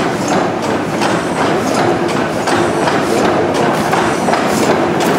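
The 600-horsepower Snow engine running, a steady rhythmic mechanical clatter and knocking from its turning crank and valve gear.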